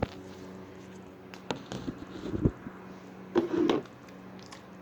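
Scattered clicks and knocks of a Rubik's cube being handled and turned, with a short louder sound about three and a half seconds in, over a steady low hum.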